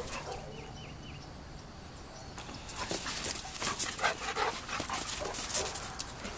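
Dogs whining and yipping. About two and a half seconds in, a busy run of short scuffling noises starts.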